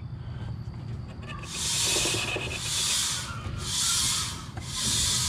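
Angle grinder disc grazing the rubber tread of a turning dually mud-terrain tire. From about a second and a half in, it makes a hissing scrape that swells and fades about once a second as the tire's high spot comes round to the disc, the sign that the tire is out of round.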